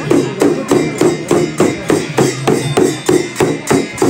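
Nepali shaman's frame drum (dhyangro) beaten in a steady, even rhythm of about four strokes a second during a jhakri ritual.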